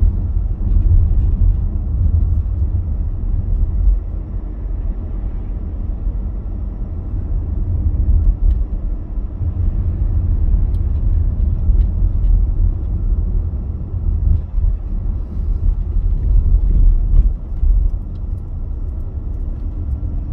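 Steady low rumble of a moving car heard from inside the cabin: engine and tyre noise on the road, loudest in the deep bass.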